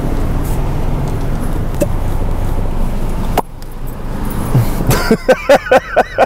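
Traffic and engine noise through an open car window, ending in a sharp pop about three and a half seconds in as a rubber plunger's suction cup is pulled off a car's side. Then come loud, rhythmic bursts of laughter.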